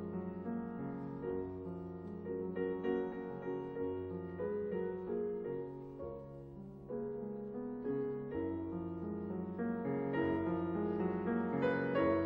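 Background piano music playing held chords, a little louder in the last few seconds.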